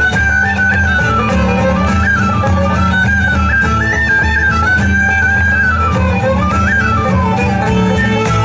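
Live instrumental music in a traditional folk style: a lead melody line moving up and down in short steps over a steady bass and rhythm accompaniment.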